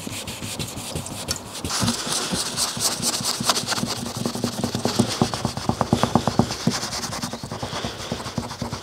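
A rag rubbing back and forth on car paint, many quick scraping strokes, as old sticker glue is worked off with thinner. A steady low hum joins from about two seconds in and fades out past the middle.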